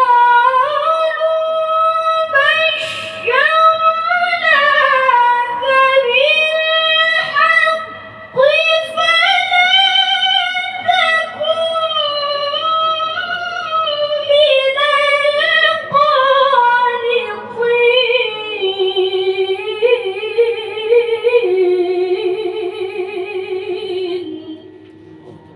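A qari's voice reciting the Quran in the melodic tilawah style: one long, ornamented phrase with wavering turns, sliding lower in pitch toward the end and stopping just before the end.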